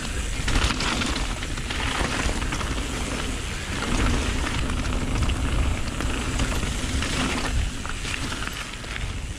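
Mountain bike speeding down a loose gravel trail: tyres crunching and crackling over stones, with the bike rattling over the rough ground and wind buffeting the microphone.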